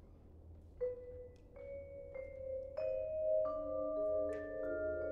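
Vibraphone notes struck one at a time, roughly every half second after a quiet first second, each left ringing so they build up into a sustained chord.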